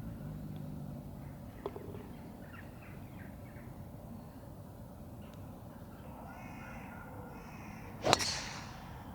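A golf club strikes a ball with a single sharp crack about eight seconds in, the loudest sound. Before it, birds call a few times in short bursts.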